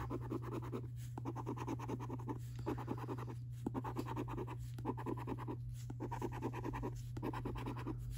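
A coin scraping the scratch-off coating of a scratchcard: runs of quick rubbing strokes broken by short pauses about once a second as the numbers are uncovered one by one.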